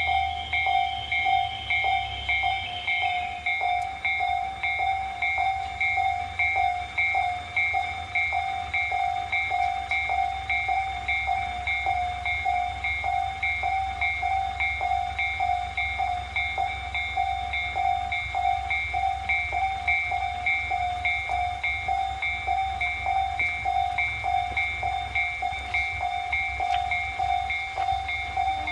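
Japanese railway level-crossing alarm ringing its rapid, evenly repeating electronic 'kan-kan' bell tone without pause while the barriers are down. A low rumble runs underneath, and a higher whine dies away about three seconds in.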